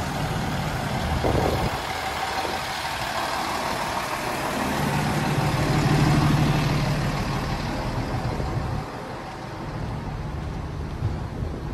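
Fire engine's diesel engine idling, a steady low hum that grows louder around the middle as it is passed up close, then falls away.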